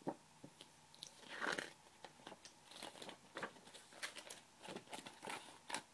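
Pages of a picture book being turned and the book handled: a sharp click at the start, then faint paper rustles and small taps.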